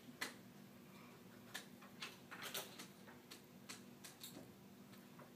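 Dry-erase marker on a whiteboard: irregular taps and short scratchy strokes as lines are drawn, over a faint steady hum.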